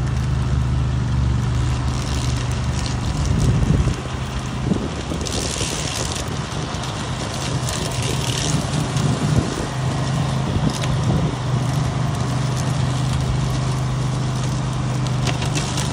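Remote-control flail mower's Briggs & Stratton engine running steadily, with crackling as the flails cut vegetation. The engine hum weakens about four seconds in and comes back strongly about ten seconds in.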